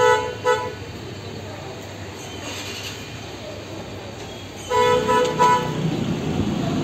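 Vehicle horn tooting twice at the start, then a quick series of short toots about five seconds in, over a low hum of traffic that grows louder near the end.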